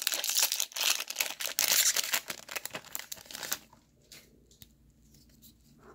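Magic: The Gathering booster pack's foil wrapper crinkling and tearing as it is pulled open by hand. The crinkling stops about three and a half seconds in, leaving a few faint clicks.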